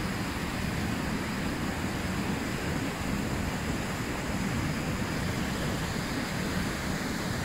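Fast river water rushing and churning through whitewater past concrete piers, a steady even rush with no breaks.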